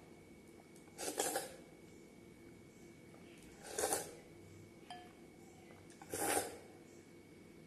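Three short wet slurps as milk-soaked bread is sucked in from the hand and bowl, with a faint clink of the glass bowl in between.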